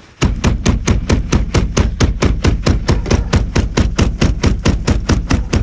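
Rapid, steady pounding on a bricknose Ford truck's gear shifter, about seven loud knocks a second for roughly five seconds, forcing it to register in park so the truck will start.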